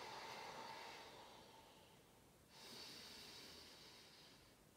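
A woman's faint, slow breathing: two long breaths in a row, each lasting about two seconds and fading out.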